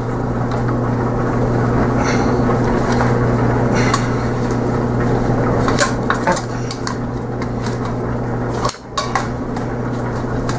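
Metal tongs clinking and scraping against a stainless steel Instant Pot inner pot and the foil-lined cake tin inside it, with several sharp clinks over a steady background hum.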